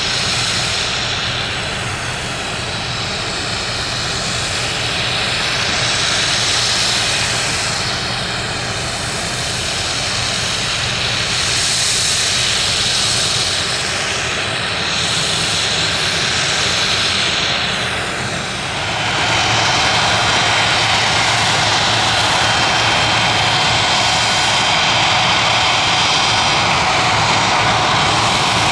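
Jet airliner engines running loud and close, with a hollow, sweeping hiss at first. About two-thirds of the way through they grow louder and settle into a steady roar with a thin high whine.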